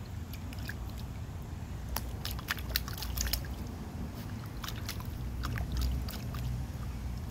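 A puppy splashing and pawing at water in a plastic tub, with irregular short splashes and slaps over a low steady rumble.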